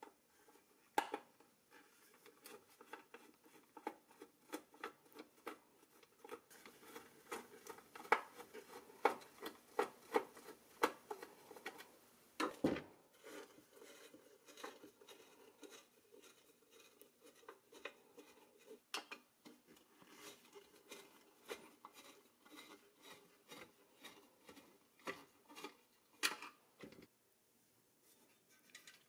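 A screwdriver working slotted screws out of the metal body and chassis of a vintage toy car: a quick run of small metal clicks and scrapes, busiest in the first half, with a louder knock partway through.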